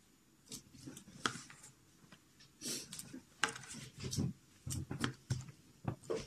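Fingers peeling open a rambutan's hairy red rind: irregular small clicks, crackles and tearing.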